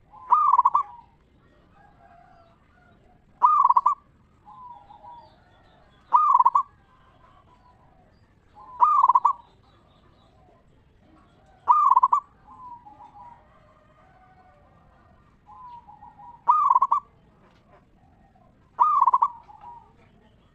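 Zebra dove (perkutut) cooing: a strong ringing phrase repeated seven times, about every two and a half to three seconds, with softer cooing notes in between.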